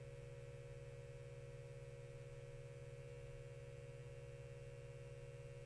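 Faint, steady electrical mains hum that holds unchanged throughout, with no other sound.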